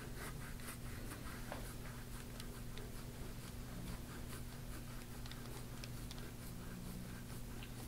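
Gua sha tool scraping over oiled skin on a tight, knotted back: faint, short scratchy strokes repeated at an even pace, with a low steady hum behind.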